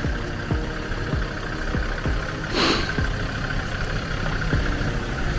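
A vehicle engine running steadily, with repeated short low thumps. About halfway through there is a brief rushing hiss.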